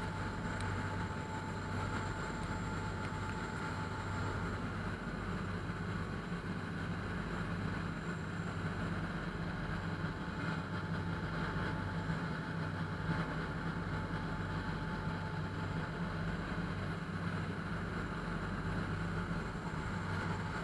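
Steady engine drone with a low, even hum and a few faint steady whining tones above it, unchanging throughout.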